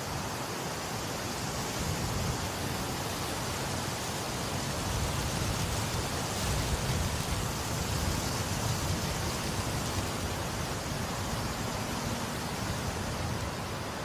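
Steady rushing wind, swelling a little louder through the middle and easing back toward the end.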